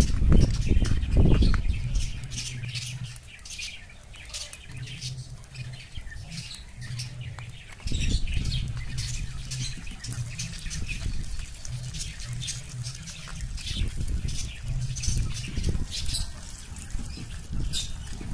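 Birds chirping and squawking in the background, many short high calls, over a low rumble.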